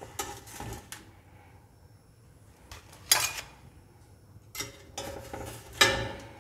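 Steel tongs clinking and scraping against an aluminium pot and its wire steaming rack, with crinkling aluminium foil, as foil-wrapped fish parcels are lifted out. Several short clatters, the loudest about three seconds in and near the end.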